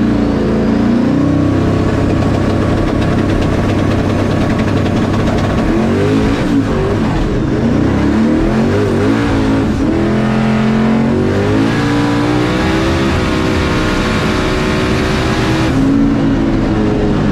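Drag car's engine heard from inside the cabin, running loud, its pitch rising and falling several times in the middle before holding steady and dropping near the end.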